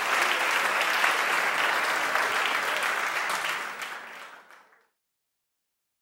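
Audience applauding, the clapping fading out near the end into complete silence.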